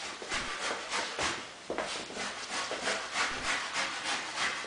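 Samoyed puppy making repeated rough scraping sounds, sparse at first and then about three or four a second.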